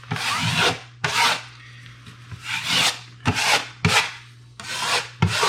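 Drywall knife scraping over a freshly set drywall patch in wet joint compound, in about seven short strokes that squeeze the mud out from under the patch. A low steady hum runs underneath.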